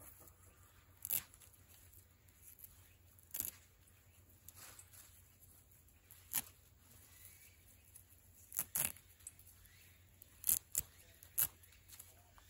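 Short, sharp rasping snaps as bare fingers strip green perilla (shiso) seed pods off their stalks into a stainless steel bowl, about eight strokes, a few seconds apart at first and coming closer together near the end.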